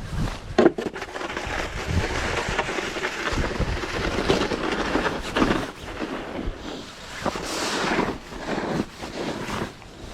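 Snow shovel scraping and crunching through packed snow in irregular strokes.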